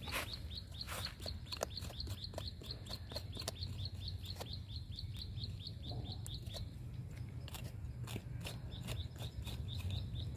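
A bird chirping in quick, even repeats, about four chirps a second, that stop about two-thirds of the way in. Scattered sharp clicks and rustles come from roots being snipped and pulled out of dry mulch.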